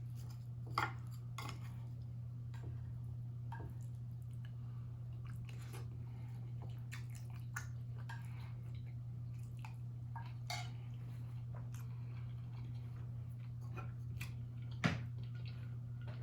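Close-up eating: scattered mouth smacks and chewing with small clicks of utensils against a dish, over a steady low hum. One sharper click comes near the end.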